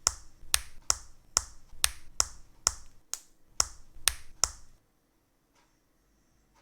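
Plastic model kit parts clicking under the builder's hands: about ten sharp clicks, roughly two a second, which stop a little before the end.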